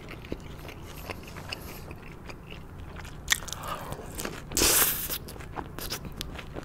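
Close-miked eating of sauced boneless fried chicken: soft chewing and small wet clicks, with one louder crunchy bite about four and a half seconds in.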